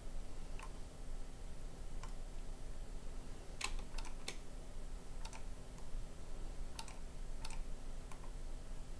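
Scattered sharp clicks of a computer mouse and keyboard, about ten in all, with a quick cluster of them near the middle, over a faint steady hum.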